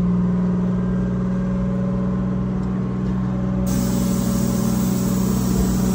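The fire engine's Detroit Diesel 6-71 two-stroke inline-six diesel running steadily at low speed as the truck rolls slowly, heard from inside the cab.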